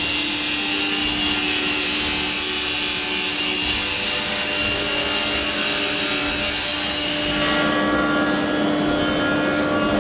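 Thickness planer with a spiral cutterhead running and planing a board, a loud high cutting hiss that eases about seven seconds in while the machine keeps running.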